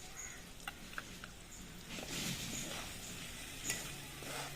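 Chicken, egg and tomato sauce frying in a pan, with a soft sizzle and a few light clicks of a spatula against the pan.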